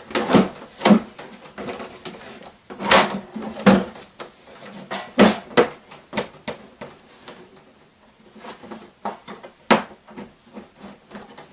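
Irregular hollow knocks and clatter as a plastic engine hood is handled and seated onto the metal frame of a motorized ski tow, with a few louder bangs among quieter rattling.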